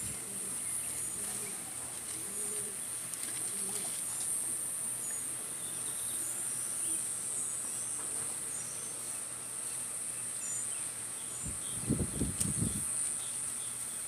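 A racing pigeon coos once, a low pulsing coo of a few beats about twelve seconds in, over a steady high hiss and scattered faint high chirps.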